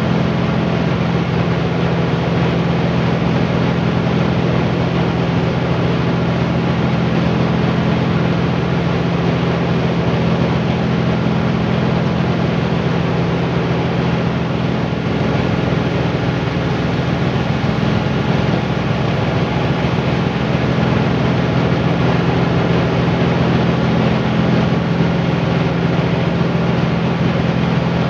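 Small motor-driven rice-milling (husking and whitening) machine running steadily while grain is fed into its hopper: a loud, even machine hum over a dense rushing noise.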